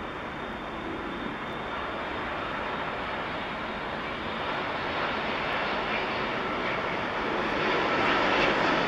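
Boeing 787-8 Dreamliner airliner on final approach with its landing gear down. Its jet engine noise is a steady rush that grows louder as it draws close, becoming brighter and loudest in the last second or two.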